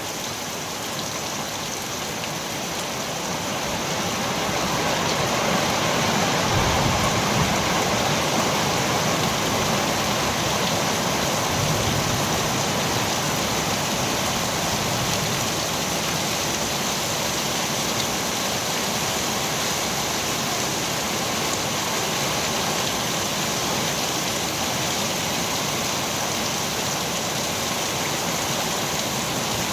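Heavy rain falling in a steady downpour, a dense even hiss that swells slightly over the first few seconds and then holds steady.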